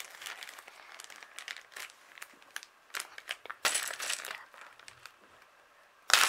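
Handling noise: rustling and crinkling with many scattered small clicks, a louder stretch a little past the middle, and a sharp loud knock just before the end.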